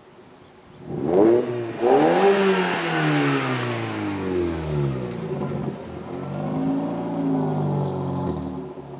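Volkswagen Golf with aftermarket headers accelerating hard. The engine revs climb in first gear, break briefly at the shift to second about two seconds in, then the exhaust note falls, swells again and fades near the end.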